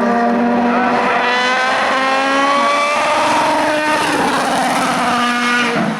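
Race car engine accelerating hard, its pitch climbing through the revs with gear changes about three and four seconds in.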